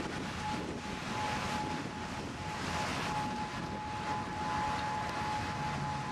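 A tornado warning tone sounding steadily at one pitch, with a second slightly higher tone joining about four seconds in, over steady wind and vehicle noise.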